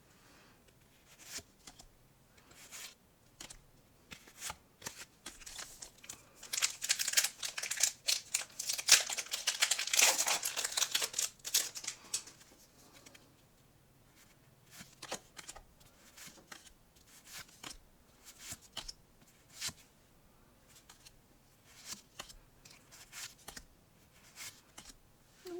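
Pokémon trading cards being handled, giving scattered light clicks and slides, with a burst of packaging crinkling and tearing for several seconds in the middle.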